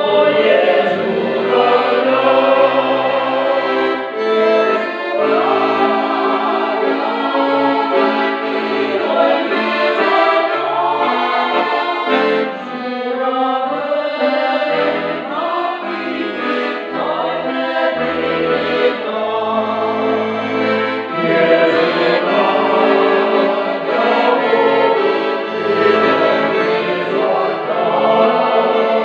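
A mixed folk choir of women's and men's voices sings a Ukrainian song in chorus, accompanied by an accordion. The accordion holds chords, and its bass notes change about every second.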